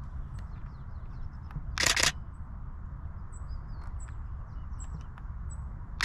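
Camera shutter firing in a short rapid burst about two seconds in, and again right at the end. Faint high bird chirps and a low steady rumble run underneath.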